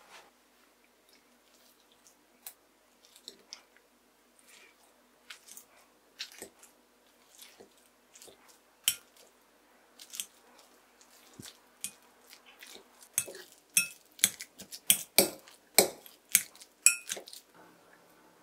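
A wire potato masher squashing steamed kabocha pumpkin in a glass bowl: irregular soft squelches and metal-on-glass clinks, coming faster and louder in the last few seconds.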